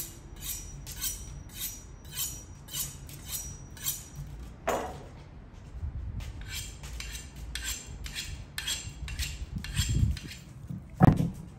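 Cooking-prep utensil sounds: short strokes repeated about twice a second, with a break midway, a louder scrape about halfway through and a heavy knock near the end.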